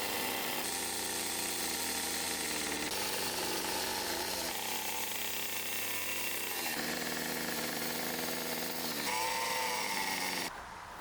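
Chainsaw engine running in a string of short clips cut together, its pitch changing with each cut and swinging up and down near the end, before the sound drops off sharply.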